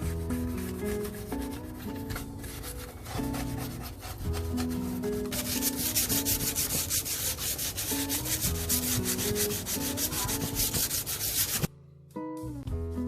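Rapid back-and-forth scrubbing of the rice cooker's outer surface with baking soda paste, a dense scratchy rubbing that grows much louder about five seconds in and cuts off abruptly near the end. Soft background music plays underneath.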